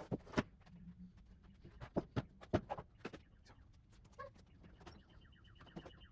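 Scattered light knocks and clicks at a low level, several bunched about two to three seconds in, with a brief faint chirp about four seconds in.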